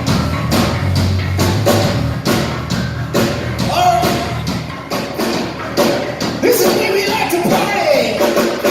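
Rock band playing, with a steady drum beat and a pitched guitar or vocal line over it.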